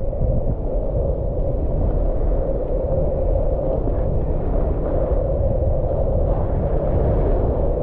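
Steady wind rush and rumble on an action camera's microphone while skiing downhill at about 22 mph, mixed with the skis scraping over the snow.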